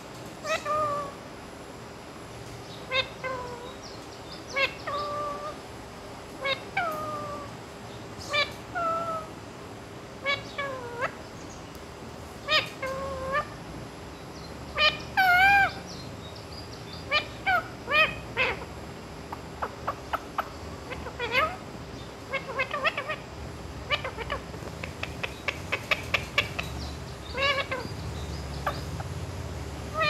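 Indian ringneck parakeet vocalising: short, pitched, gliding calls every second or two, quickening in the second half into rapid runs of short clicks and chirps.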